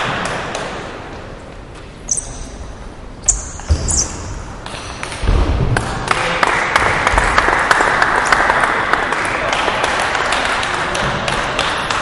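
Celluloid-type table tennis ball clicking off bats and the table: three sharp pings in the first few seconds, then a heavy thud. After the thud comes a steady din of voices and hall noise, dotted with small clicks.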